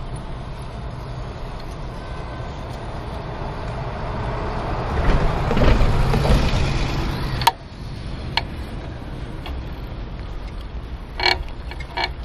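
City bus engine running close by, its noise swelling as the bus draws alongside about halfway through and then dropping off abruptly at a sharp click. A few short clicks and rattles follow near the end.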